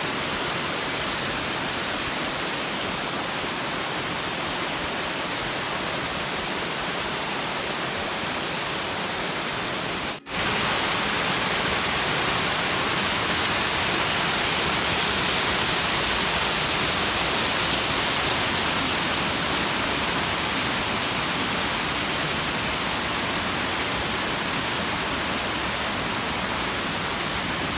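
Gostilje waterfall: the steady rush of falling water, an even hiss across all pitches. About ten seconds in it drops out for an instant, then comes back louder and brighter.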